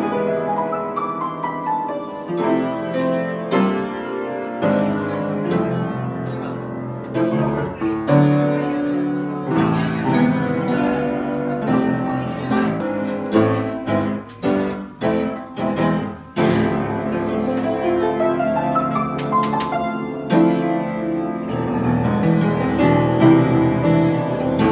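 Upright piano played by hand: chords and melody with notes left to ring, and a passage of short, separated chords near the middle.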